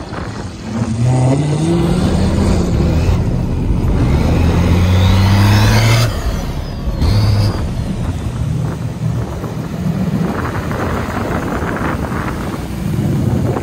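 The Cummins-diesel-swapped 1950 Cadillac accelerates hard: its diesel engine revs up with a high whistle climbing alongside, over-fuelled enough to blow thick black smoke. About six seconds in, the sound cuts off sharply. A quieter vehicle then drives past.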